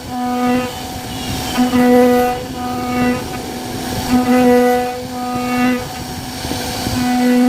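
CNC router spindle cutting wood, a steady whine with a pitched buzzing tone that swells in and fades in stretches of a second or so, about every two seconds, as the bit works the door panel.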